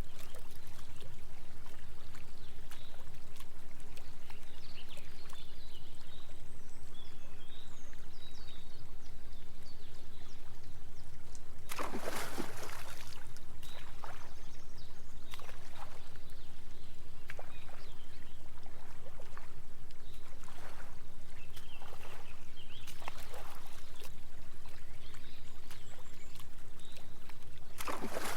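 Small waterfall pouring and trickling steadily over steady low binaural-beat tones, with a couple of splashes from swimming in the pond, one about halfway through and one near the end.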